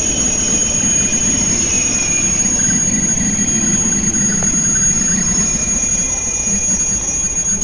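Al Boraq double-deck high-speed train (Alstom Euroduplex trainset) rolling slowly alongside the platform as it pulls in, a low rumble of the carriages under a steady, high-pitched squealing whistle.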